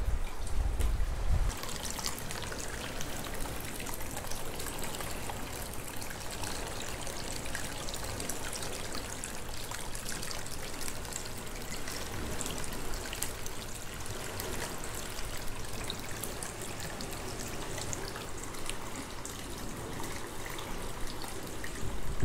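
Hot-spring water trickling and splashing steadily into an open-air bath. A brief low rumble comes first, and the water sound takes over about a second and a half in.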